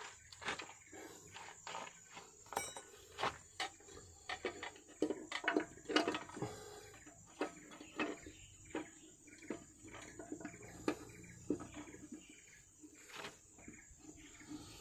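Irregular light clicks and metallic knocks as a spin-on oil filter canister is handled and screwed by hand onto the filter mount of a Nissan RE10 lorry engine, with the engine off. A faint steady high-pitched tone sits underneath.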